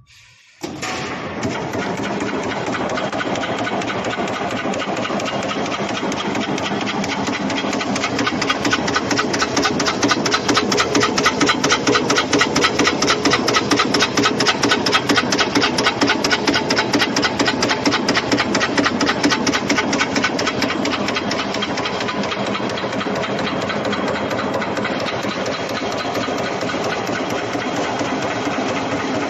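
An expanded metal machine running: its slitting-and-stretching press cycles in a rapid, even clatter of repeated strokes. It starts about half a second in and is somewhat louder through the middle.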